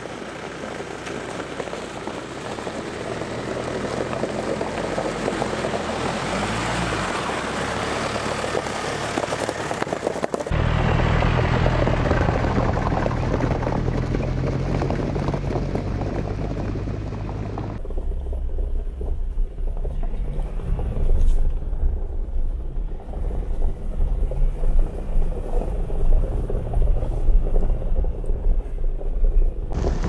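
Jeep Wrangler driving on an icy, snow-covered track. First comes engine and tyre noise that builds as it approaches. After a cut about ten seconds in there is a steady low engine drone. From about eighteen seconds in a low rumble runs with wind buffeting the microphone in irregular gusts.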